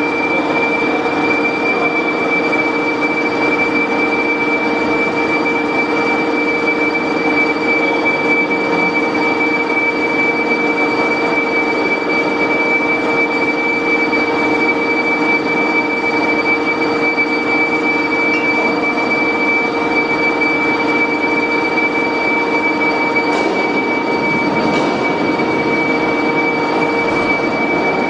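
Steady machinery drone with several constant whining tones over a hum, unchanging throughout. Two faint clicks come near the end.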